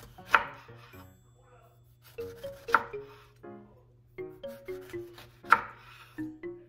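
Chef's knife slicing through a lemon and striking a wooden cutting board three times, roughly every two and a half seconds, each cut a sharp knock with a short rasp. Background music plays throughout.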